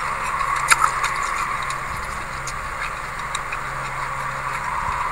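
Mouth sounds of chewing dry white sesame seeds: small scattered crunches and clicks over a steady hiss and faint low hum, with one sharper click about a second in.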